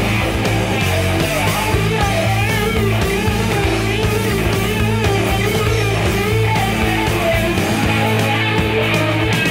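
Hard rock recording in an instrumental stretch: a wavering, bending lead electric guitar line over steady bass notes and drums.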